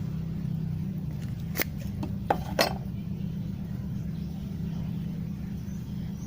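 Metallic clicks and clinks of a Zippo lighter being handled as its insert is taken out of the case: one sharp click about a second and a half in, then two more close together about a second later, over a steady low hum.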